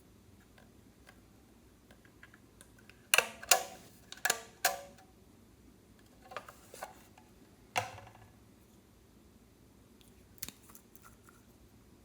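Scattered sharp clicks and taps of small hard objects being handled, in two quick clusters a few seconds in, then a single click near the end.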